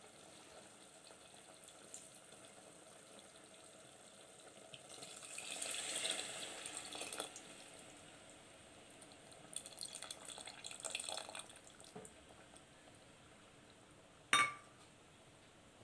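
Tamarind water poured in a thin stream into a steel pot of thick okra and tomato gravy: a soft trickle and splash in two spells. Near the end, a single short knock with a brief ring.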